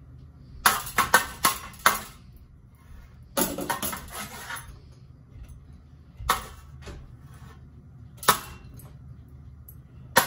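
Ceiling fan being smashed: sharp blows with clattering and clinking of metal parts, five quick hits about a second in, a rattling burst a little later, then single hits every two seconds or so.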